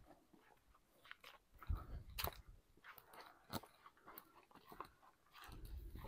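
Quiet footsteps and trekking-pole strikes on grass and heather: irregular soft crunches and sharp clicks. Two brief low rumbles hit the microphone, about two seconds in and near the end.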